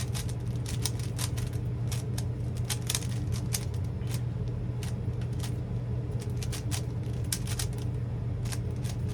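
Plastic Rubik's-type puzzle cube being turned quickly by hand: irregular clicks and clacks of the layers snapping round, over a steady low hum.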